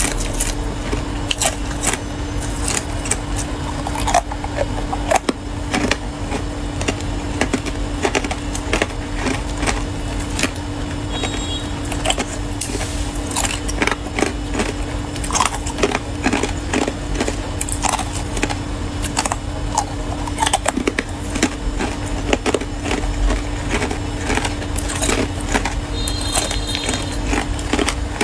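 Ice cubes coated in matcha powder being bitten and chewed: dense, irregular cracks and crunches. A steady low hum runs underneath.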